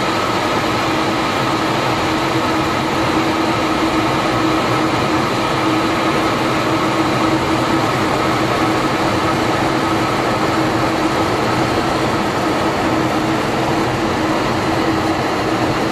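Steady jet engine and airflow noise inside a MiG-31 interceptor's cockpit, with a constant hum and a fainter higher tone running through it.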